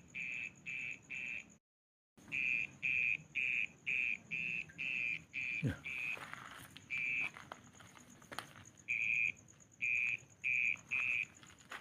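A night animal calling: a long series of short, high-pitched notes on one pitch, about three a second, in runs broken by short pauses, over a faint steady insect-like hum. The sound cuts out completely for about half a second near the start.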